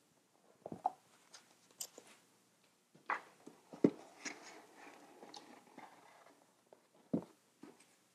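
Cardboard filament boxes being handled and slid out of a 3D printer's frame: scattered light knocks, scrapes and rustles, with the sharpest knock a little under four seconds in.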